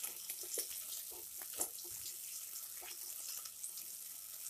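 Silicone spatula stirring sautéed onions and Schezwan sauce in a pot: faint, irregular scrapes over a light frying sizzle.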